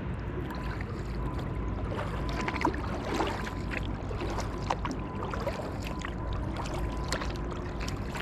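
Kayak being paddled: water splashing and dripping off the paddle and lapping against the hull in small irregular splashes, over a steady low rumble.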